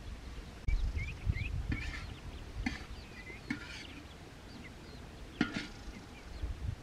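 Ducklings peeping in short, high chirps, with a few sharp knocks in between, the loudest about five and a half seconds in.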